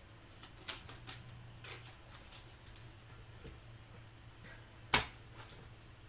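2023 Panini Revolution trading cards being handled and flipped through: a scatter of light clicks and taps, with one sharper click about five seconds in.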